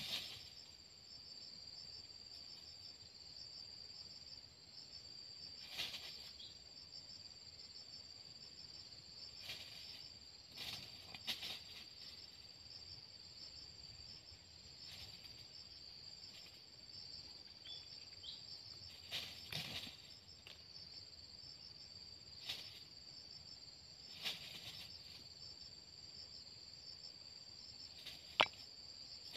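A steady, high-pitched insect chorus of crickets or cicadas, finely pulsing, with a thin high whine above it. About ten brief scuffs or rustles break in here and there.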